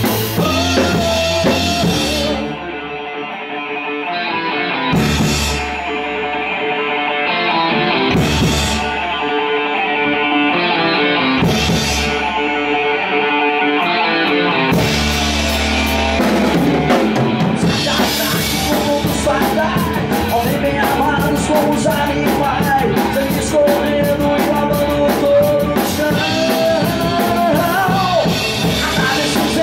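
Heavy metal band playing live in a rehearsal room: distorted electric guitars and bass play a riff, with only a cymbal crash and bass drum hit about every three and a half seconds. About 15 seconds in, the full drum kit comes back in, and a voice sings over the band in the later part.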